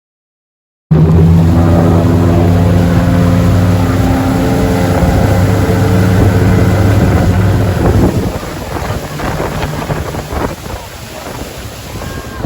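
Motorboat engine running steadily at speed, cutting in abruptly about a second in, with wind buffeting the microphone. About eight seconds in the engine sound drops away, leaving wind and water noise.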